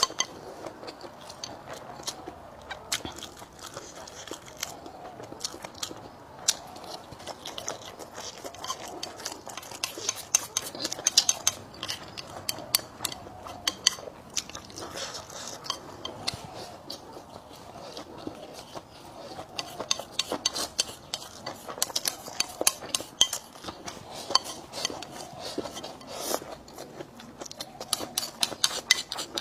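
Eating at a table: utensils clicking and scraping against a bowl or dish many times, with chewing in between.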